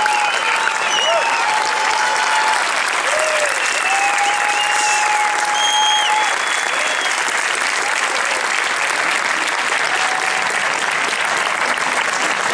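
Large crowd applauding steadily, with a few voices calling out over the clapping in the first half.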